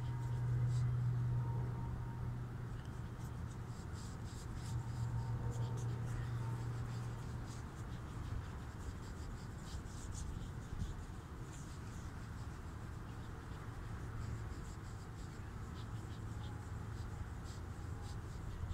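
Fingers rubbing polish over a hazy plastic car headlight lens, making a soft, irregular scratchy rubbing. A low hum runs underneath, strongest in the first half.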